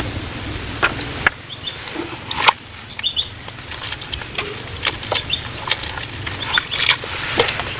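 Birds chirping in short bursts, with scattered sharp clicks and knocks over a steady low rumble; the loudest knock comes about two and a half seconds in.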